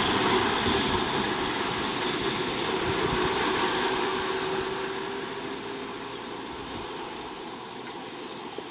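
Box lorries driving past and away along a road, their engine and tyre noise fading steadily.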